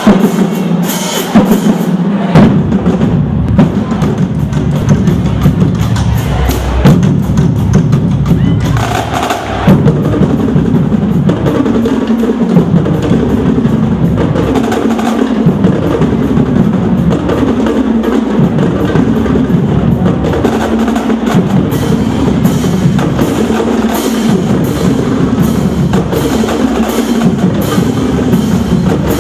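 Marching drumline playing a loud cadence on Yamaha marching snare drums, multi-drum tenors and crash cymbals, settling into a groove that repeats about every three seconds.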